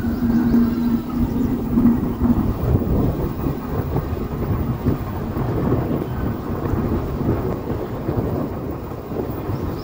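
Wind rumbling on the microphone of a moving vehicle, with road and engine noise underneath and a steady hum that stops about two and a half seconds in.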